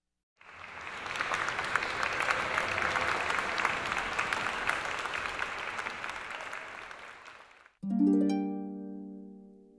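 Audience applause, a dense patter of claps that fades toward the end. Almost eight seconds in, a single harp chord is plucked and rings away.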